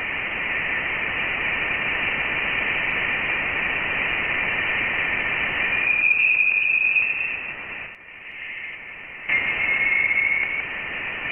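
Voyager 1's plasma-wave recording from interstellar space, turned into sound: radio waves vibrating in charged plasma particles come out as a static-like radio hiss. A thin, high, steady whistle fades in and out over it, and the hiss drops quieter for about a second some eight seconds in.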